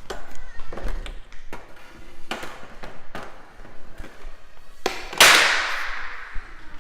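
Footsteps, a knock or thud about every second, then a loud scraping, rushing noise about five seconds in that fades over a second or so.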